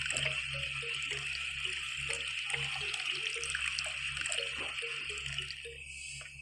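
A stream of liquid pouring from a miniature pump's spout into a small metal pail, a steady splashing pour that tapers off near the end.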